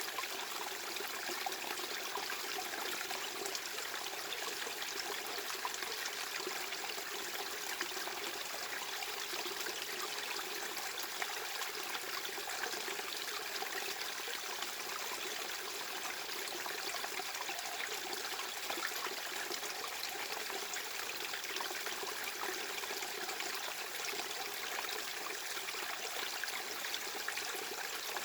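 Steady white-noise masking track: an even hiss spread from the mid range up into the highs, with almost no bass, holding the same level without any change.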